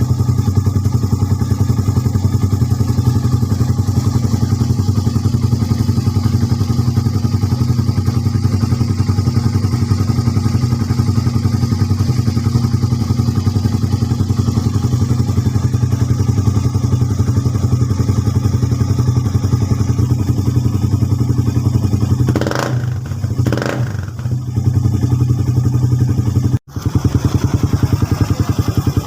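Suzuki Raider 150's four-stroke single-cylinder engine idling loudly through an Apido power pipe exhaust with the silencer removed, a steady low, even pulse. Near the end it is blipped twice in quick succession, the pitch rising and falling each time.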